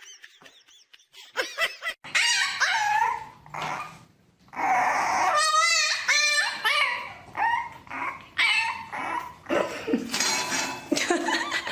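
A dog giving a series of whines and yips that bend in pitch, starting about two seconds in, with a short pause near the middle.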